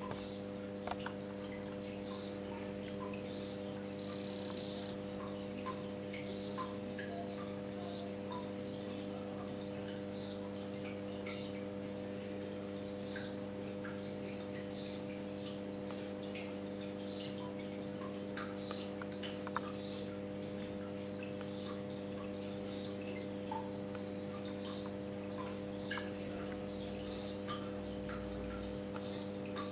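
Amazonian poison frog (Ranitomeya amazonica) calling: one short high call about four seconds in, with fainter short high notes and small clicks scattered through. A steady low electrical hum runs underneath.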